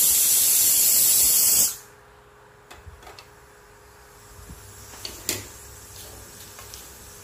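Pressure cooker venting steam: a loud, steady hiss that cuts off abruptly about a second and a half in, followed by a few faint clicks and knocks.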